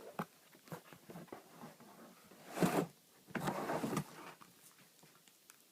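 Cardboard box and packaging being handled and rummaged through: light taps and clicks, then two short rustling scrapes about two and a half and three and a half seconds in.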